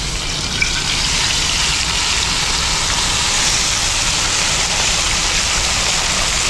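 A whole masala-marinated fish frying in hot coconut oil in a wide aluminium pan: a loud, steady sizzle that sets in as the fish is laid into the oil.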